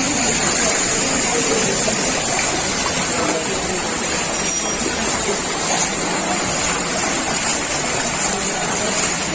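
Steady rushing of water, an even hiss that holds at one level without pause.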